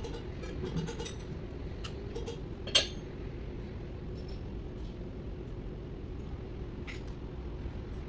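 Metal hand tools clicking and clinking against engine parts, with one sharp, loud metallic clink about three seconds in and a few lighter taps, over a steady low workshop hum.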